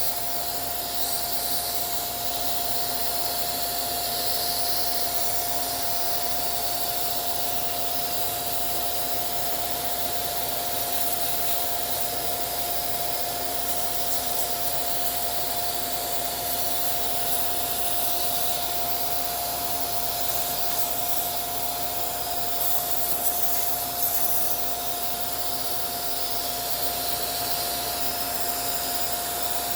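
Small vacuum cleaner running steadily, a constant motor whine over a rushing hiss of air, used to clean out a sewing machine.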